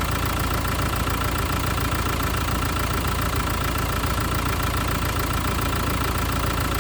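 Car engine idling steadily, with a constant high whine running over it.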